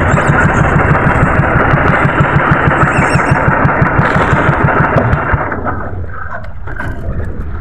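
Small outrigger fishing boat's engine running, with an even low pulse; the engine sound falls off about five and a half seconds in.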